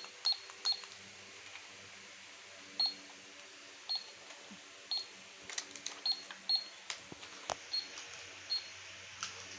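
Toy cash register's handheld barcode scanner beeping as it is pressed: about ten short high beeps at uneven intervals, with plastic clicks.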